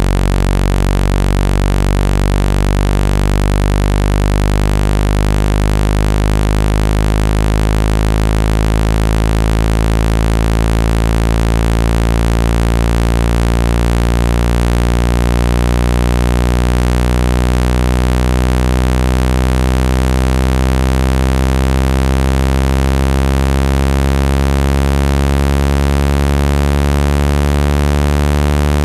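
Loud, low-pitched synthetic buzzing tone with many overtones, its pitch slowly creeping upward. It is a speaker-cleaning tone meant to vibrate a phone's speaker and shake out dust.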